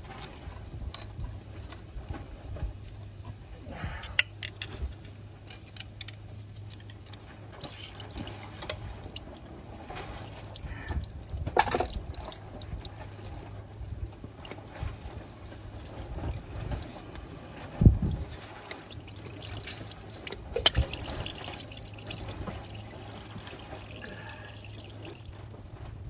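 Antifreeze dripping and trickling from a VW New Beetle's engine block as the water pump is pried out with a screwdriver, with scattered metal clicks and knocks from the prying, the loudest a thump about two-thirds of the way through, over a low steady hum.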